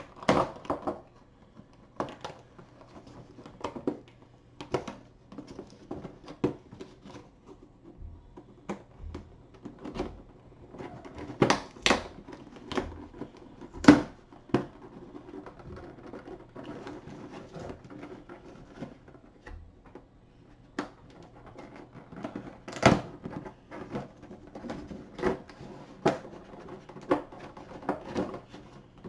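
Cardboard and plastic toy packaging being worked open by hand: irregular clicks, taps and crinkles, with a few louder knocks.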